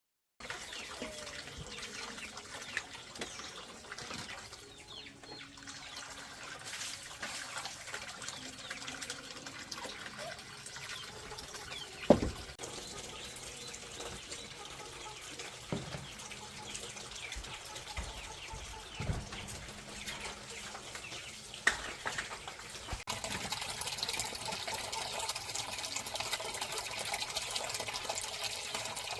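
Water running and splashing, with chickens clucking and a few sharp knocks. The water hiss gets louder and brighter about three-quarters of the way in.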